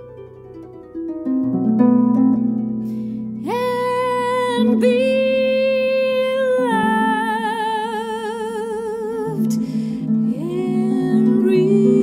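Harp plucked in a slow jazz arrangement, with a woman's voice entering a few seconds in on long held notes that slide up into place and carry vibrato, accompanied by the harp.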